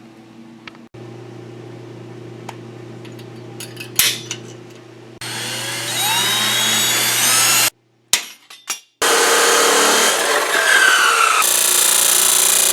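A 14-inch abrasive cutoff saw spinning up with a rising whine, then loud grinding as it cuts through steel tubing, in several short cuts with clicks between them.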